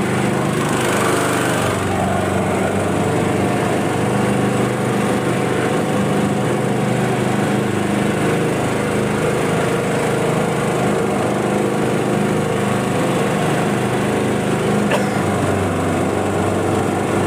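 Small outboard motor running steadily at an even pitch, driving an aluminium boat along the river.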